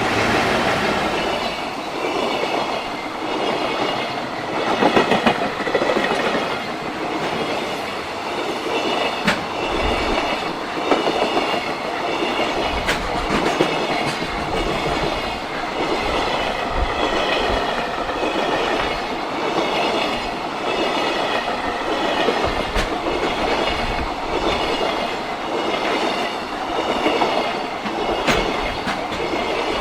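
JR Freight freight train passing close by, a long run of wagons rumbling steadily with the wheels clacking rhythmically over the rail joints.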